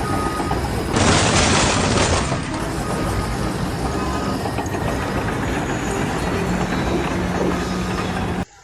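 Loud, steady rumble of heavy machinery, with a louder rushing noise about a second in. It cuts off abruptly near the end.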